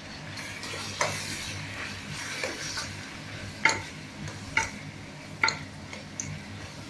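A spoon stirring brinjal pieces and freshly added spice powders in oil in a stainless steel pan, over a frying sizzle. Several sharp clinks of the spoon against the pan, the loudest about three and a half seconds in.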